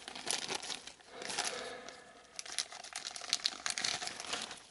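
Plastic packaging crinkling and rustling in irregular bursts as it is handled.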